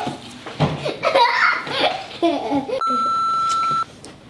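Family voices with a child talking and laughing, then a single steady electronic beep about a second long that starts and stops abruptly, as loud as the voices.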